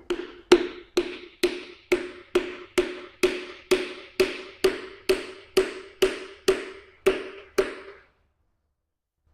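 Steady tapping on a piston crown with a mallet, about two taps a second, each with a short hollow ring, driving the ringed piston through a ring compressor into the cylinder bore of a Mazda B2200 engine block. The tapping stops about two seconds before the end.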